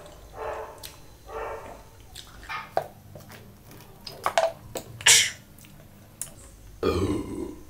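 A woman drinking cola from a plastic bottle, with soft mouth and swallowing sounds and a few sharp clicks, then a burp near the end.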